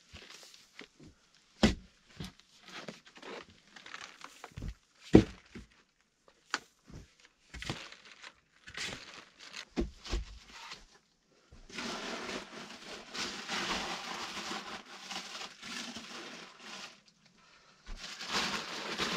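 A few sharp knocks and thuds as a wooden post is worked into the soil, the loudest about five seconds in. From about halfway there is a long stretch of plastic tarpaulin rustling and crinkling as it is pulled and tucked along a log wall, and this starts again near the end.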